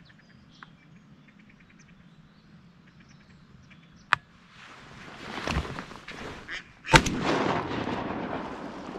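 Two shotgun shots at passing ducks, about three seconds apart, the second the louder. Between and after them comes a swelling rush of noise that fades slowly after the second shot.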